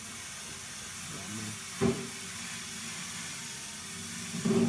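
A steady hiss with a low hum underneath that starts suddenly and runs on. Two brief louder sounds come about two seconds in and near the end.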